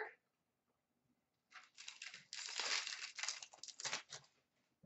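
Crinkling rustle of trading cards being handled, starting about one and a half seconds in and lasting a couple of seconds.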